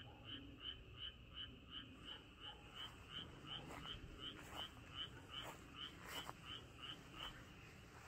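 A frog calling in a fast, even series of short high notes, about three a second, that stops near the end.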